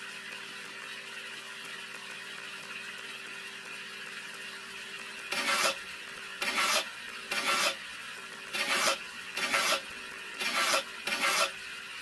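A bent wire tool scraping and stirring through wet cement mix, in a series of short strokes about one a second that begin about five seconds in.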